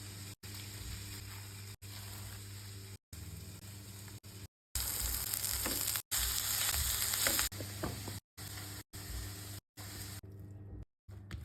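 Food sizzling as it fries in a pan, heard in short clips with abrupt cuts between them. The sizzle is loudest and brightest from about five to seven and a half seconds in, and fades to a faint hiss near the end.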